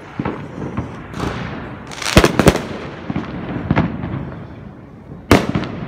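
Fireworks going off: a continuous run of bangs and crackles, with a loud cluster of bangs about two seconds in and another sharp bang near the end.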